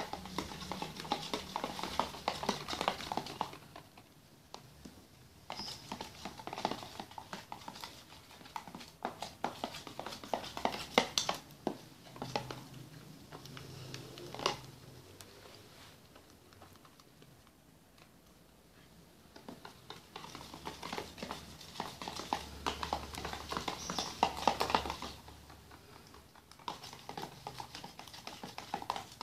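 Spoons stirring glue slime in plastic containers, with rapid clicking and scraping against the container sides in spells of several seconds separated by short pauses. The mixture is being worked until it clumps.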